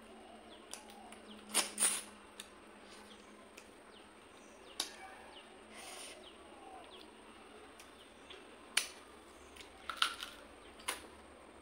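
Close-up mouth sounds of eating fish head curry and rice by hand: wet lip smacks and sucking clicks while chewing and sucking on the fish head. The sharp smacks come in short clusters, the loudest about two seconds in and again near ten seconds. Faint bird chirps sound in the background.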